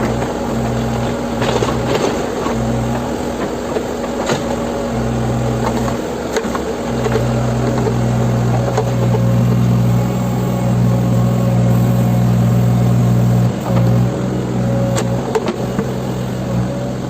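Backhoe loader's diesel engine running under varying load, its low note pulsing in the first few seconds and then holding heavier from about seven seconds in, with a few sharp knocks.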